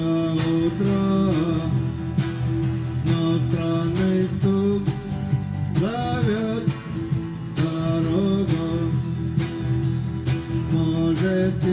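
Music: an instrumental passage of a song, with a strummed acoustic guitar keeping a steady rhythm under a gliding melody line.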